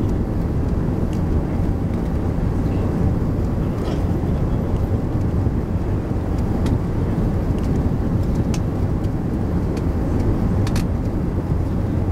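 Steady low cabin rumble of an Airbus A380 airliner descending on approach with its flaps extended: engine and airflow noise heard from a window seat. A few faint ticks sound through it.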